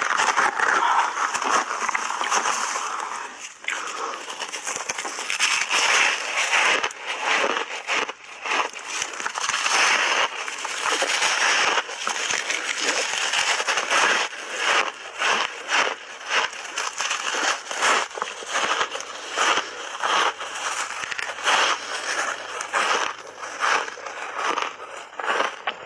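Close-up crunching of frozen shaved ice being bitten and chewed in big bites. There is dense continuous crunching for the first few seconds, then a long run of separate, irregular crunches.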